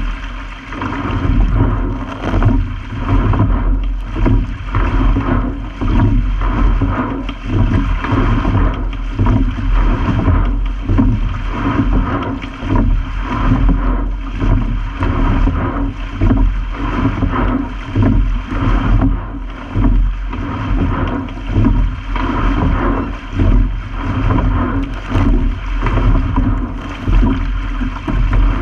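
A sculling racing shell moving through the water, with water rushing along the hull close to the microphone. The sound swells and eases in a steady rhythm, about one stroke every two seconds.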